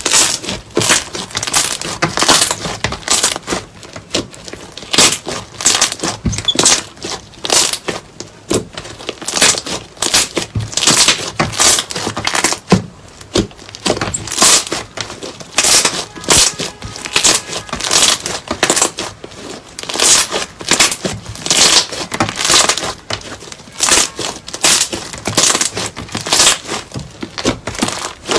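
Slime being squeezed and pressed by hand, giving a string of crackling, crunchy bursts, about one or two a second.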